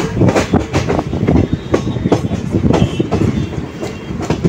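Passenger train running at speed, heard at an open coach door: a rapid, uneven clatter of the coach wheels over the rail joints over a steady heavy rumble.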